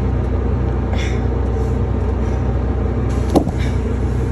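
Steady low motor hum, with a brief hiss about a second in and a single sharp click a little after three seconds.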